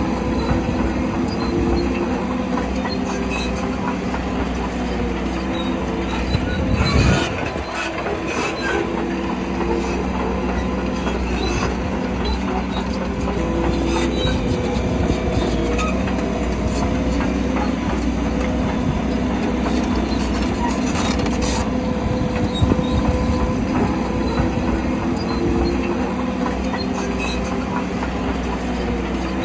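Shantui crawler bulldozer working: its diesel engine drones steadily under the squeal and clank of its steel tracks. A loud clank comes about seven seconds in.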